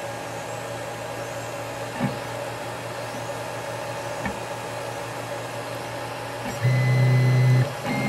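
Prusa i3 DIY kit 3D printer running a print in its last layers: a steady hum of motors and fans, with a couple of faint clicks and, near the end, a louder buzzing tone for about a second.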